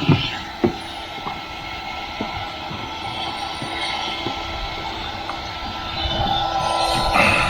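Wet-and-dry vacuum cleaner running steadily with a whining motor, the nozzle knocking a few times against the car's boot; the suction noise gets louder near the end.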